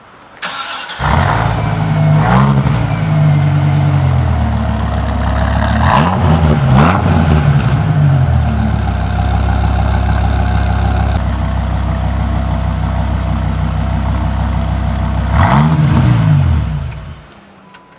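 Dodge Viper's V10 engine, heard from behind at its twin tailpipes, cranks briefly and fires within a second. It is blipped in short revs about two seconds in and twice more around six to seven seconds, idles steadily in between, gets one more rev near the end, then is switched off.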